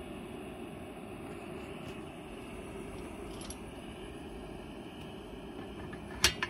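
SVEA No.100 brass pressure stove burning steadily with a low, even rush from its burner. About six seconds in, a sharp metallic clank as a cast-iron pot stand is set onto the stove.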